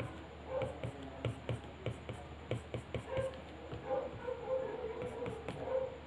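Stylus tip tapping and stroking on an iPad Pro's glass screen: a quick, uneven run of light clicks and soft scratches.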